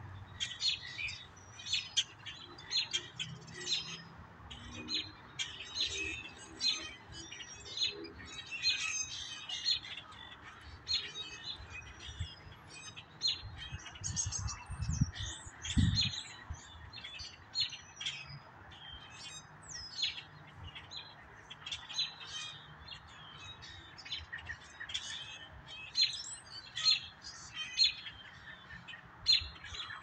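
Many birds chirping and calling over one another without a break. A couple of low thumps come about halfway through.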